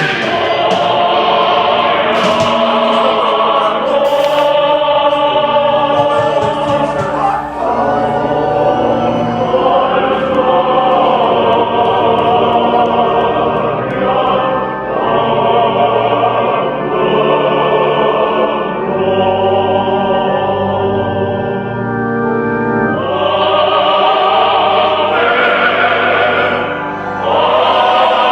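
Choir singing a slow piece in long held phrases, each a few seconds long, with brief breaks between them.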